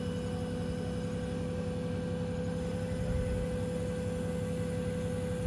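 Truck-mounted crane's engine and hydraulics running steadily with a low rumble and a steady humming tone while it lowers a burial vault into the grave on chains.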